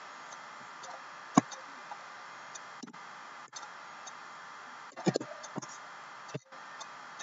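Scattered clicks from a computer keyboard and mouse: one sharp click about a second and a half in, a quick cluster of clicks around five seconds, and single clicks after, over a steady low hiss.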